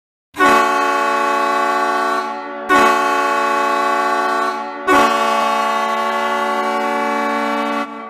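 Ice hockey goal horn sounding three long blasts, the third the longest, each a steady, unwavering tone.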